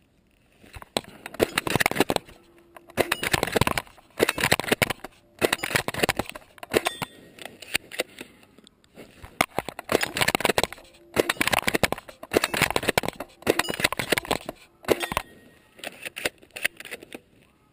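Rustling, crunching noise in dry grass, repeated in short bursts about once a second, like steps through the dead grass.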